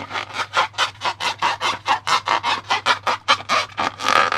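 Slime being worked by hand: quick, rhythmic squishing and rubbing strokes, about five a second.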